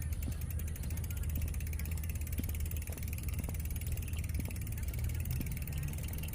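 Bicycle freewheel hub ticking rapidly and evenly as the rider coasts, over a steady low rumble, with a few scattered clicks.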